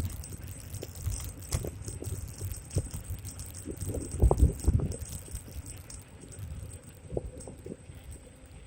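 Xiaomi M365 electric scooter being ridden over a rough rural road: irregular rattles and knocks from the scooter, with wind buffeting the microphone in uneven gusts, strongest about four seconds in. A thin steady high tone runs underneath.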